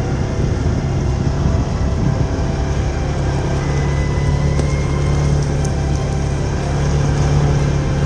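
Engine of a farm vehicle running steadily while driving along, a continuous low hum that firms up about halfway through.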